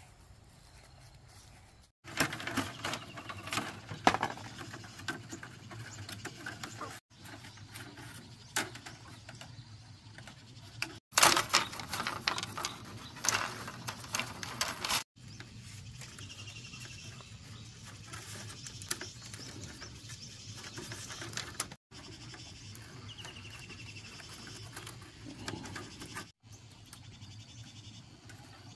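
Split bamboo strips clicking, tapping and rustling as they are worked by hand into a round woven basket. The sound cuts off abruptly several times. It opens with faint rustling of leafy greens being picked.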